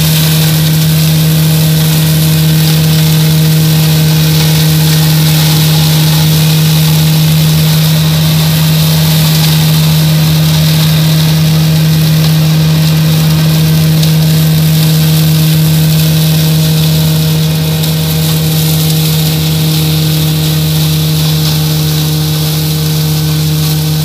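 Kubota MX5100DT tractor's four-cylinder diesel running at a steady working speed while driving a PTO-powered Land Pride flail shredder, its spinning rotor adding a steady high hiss as it cuts grass. The sound eases off a little in the last few seconds as the tractor moves away.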